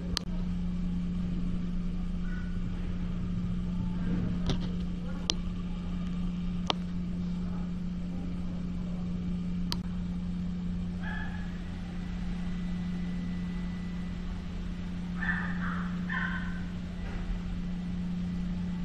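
Steady low mechanical hum with a low rumble underneath, broken by a few sharp clicks between about four and ten seconds in.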